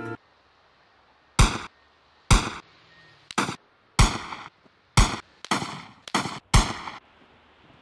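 Gunshot sound effects: about ten sharp bangs, a second or so apart at first and coming faster near the end.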